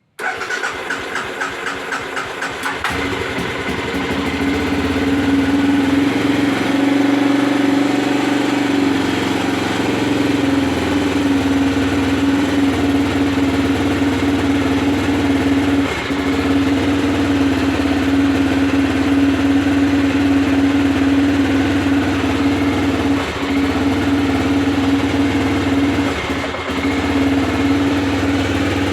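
Aprilia Pegaso 650's single-cylinder engine running steadily, with brief dips in level a few times; the engine has a misfire.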